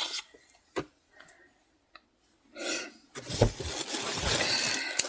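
Toddler clothes and their bag being handled: a couple of faint clicks, then from about three seconds in a steady rustling of fabric and packaging with a few soft thumps.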